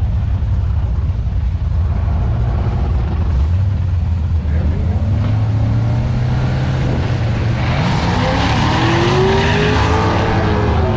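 Drag cars' engines idling at the starting line, then about seven and a half seconds in they go to full throttle and launch, the sound swelling and the pitch rising and then falling as the cars pull away down the strip.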